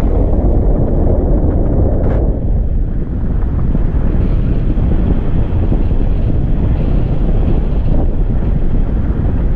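Wind buffeting a pole-mounted action camera's microphone in paraglider flight: a loud, steady, low rumbling rush. A short click about two seconds in.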